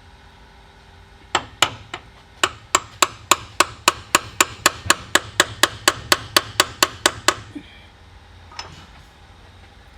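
A hand hammer tapping on metal differential parts. A couple of strikes come first, then a steady run of about twenty quick blows at roughly three a second, stopping about seven seconds in.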